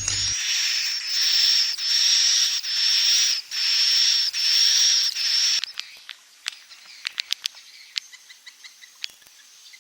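Swiftlet lure recording of the 'inap' (roosting) kind: a run of loud, buzzy, hissing calls about a second each with short gaps, then from about six seconds in, quieter rapid clicks and short chirps. It is the call played from swiftlet houses to draw the birds in to roost.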